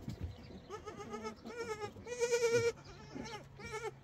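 A flock of small livestock bleating: a few short calls about a second in, then a long, loud, quavering bleat about two seconds in, and another shorter bleat near the end.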